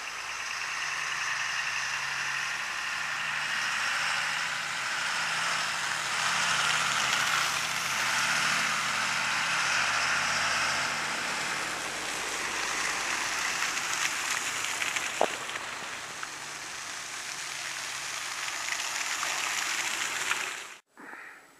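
Cars driving along a slushy, snow-covered road: a steady hiss of tyres through wet snow under a faint engine hum, swelling and fading as vehicles pass.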